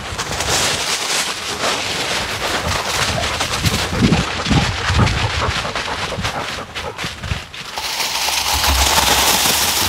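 Dry fallen leaves crunching and rustling in quick, irregular crackles under a running dog's paws, picked up close by a camera strapped to the dog. Near the end the crackling stops and gives way to a steadier hiss.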